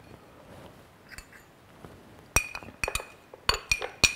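A small glass jar clinking sharply against the rim of a Vitamix blender jar, about seven times in the second half, as its contents are tipped and tapped out.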